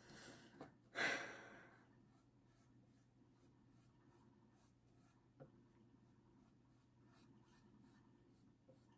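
A person sighs about a second in: a single breathy exhale that fades over about a second. After it there is near silence with a faint low hum and one light tap a little past the middle.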